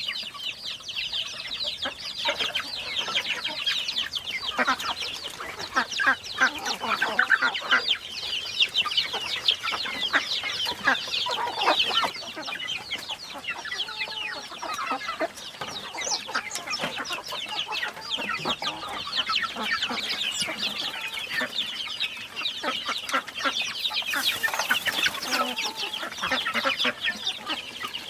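A flock of chickens calling continuously, many overlapping clucks and high peeps at once, with louder individual clucks now and then.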